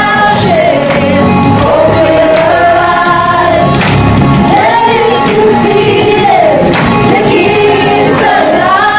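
A group of people singing a song together in unison.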